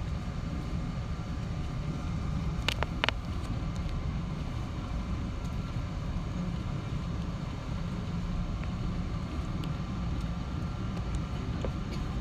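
Steady low rumble inside the cabin of a Boeing 777-200ER taxiing: engines at low power and wheels rolling on the taxiway. Two short clicks come about three seconds in.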